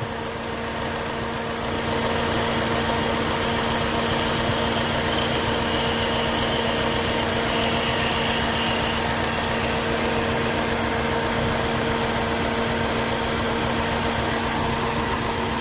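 2014 Hyundai Sonata's gasoline direct-injection engine idling steadily with a constant hum, running with its cylinder 1 injector not working. It gets a little louder about two seconds in.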